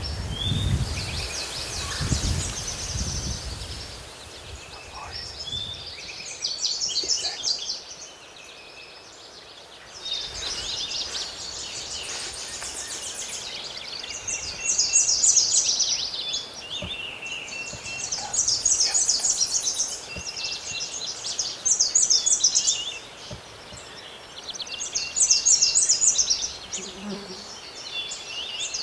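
Songbirds singing, with a high, rapid chattering phrase every two or three seconds, over outdoor background noise. A low rumble, like wind or handling on the microphone, sounds in the first few seconds.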